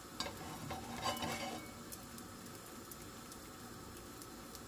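A stuffed puff-pastry parcel frying gently in butter and oil in a pan over lowered heat, with a quiet steady sizzle. A spatula pressing it down taps against the pan a few times in the first second and a half.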